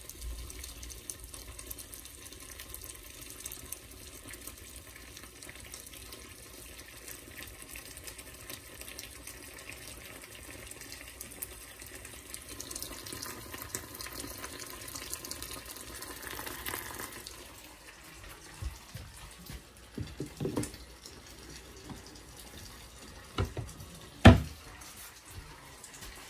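Food sizzling in hot oil in a pan: a steady hiss, with a few sharp knocks in the last third, the loudest about two seconds before the end.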